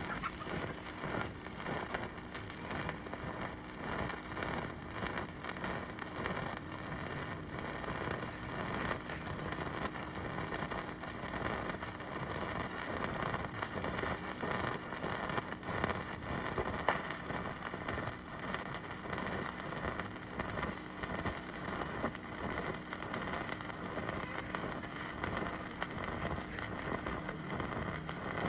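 Electric welding arc crackling steadily, a dense rain-like sizzle.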